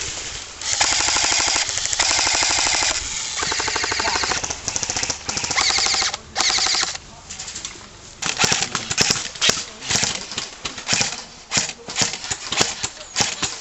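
Airsoft guns firing full-auto in several long, rapid bursts for the first half. In the second half come scattered separate shots.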